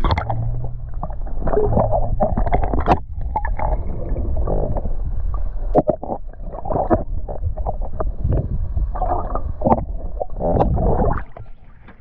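Muffled gurgling and low rumbling of river water heard through a camera held underwater, with irregular sloshing surges. The rumble drops away sharply near the end.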